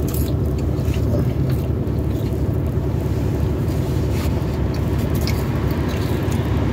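Steady low hum of a car with its engine running, heard inside the cabin, with faint chewing and small clicks of eating.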